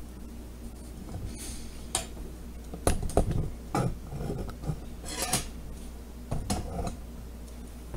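Irregular clicks, knocks and short rustles of small plastic cups, containers and packets being handled on a kitchen counter, the loudest knocks about three seconds in.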